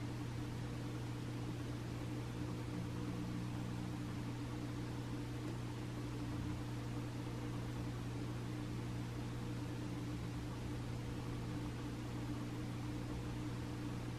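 Room tone: a steady low hum with a faint hiss, unchanging throughout.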